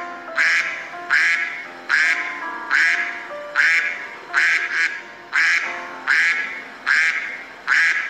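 A duck quacking over and over, about ten loud quacks evenly spaced less than a second apart, over soft background music.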